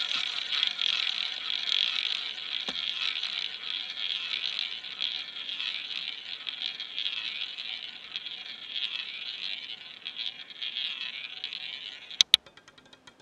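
Roulette ball whirring round the spinning wheel's track, slowly fading as it loses speed. About twelve seconds in it drops with two sharp clacks and then rattles quickly over the frets into the pockets.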